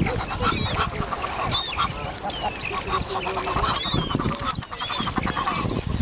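Geese honking again and again, mixed with the calls of other waterbirds, with higher chirping calls over them.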